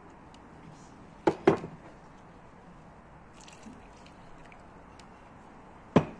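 Water poured from a glass tumbler into flour in an enamel bowl, a faint splashing, with two sharp knocks about a second in and a third near the end, the loudest sounds.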